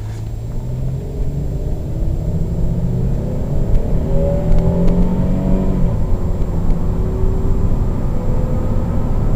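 A 3800 V6 in a 2003 Chevrolet Monte Carlo accelerating hard, its pitch climbing for several seconds, dropping about six seconds in as the automatic upshifts, then pulling on again. It is pulling freely through the gears with a new catalytic converter fitted, the exhaust restriction gone.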